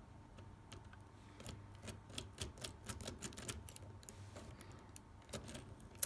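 Faint, irregular metallic clicking from a pick working in the keyway of a brass World Ball dimple euro cylinder lock as the picked plug is turned back round to lock it again; the clicks come thickest in the middle.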